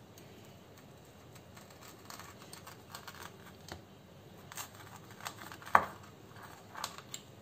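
Pizza cutter wheel rolling and pressing through a crisp toasted bread slice on a wooden chopping board: a run of small crunchy crackles and clicks starting about two seconds in, with one louder crack near the end.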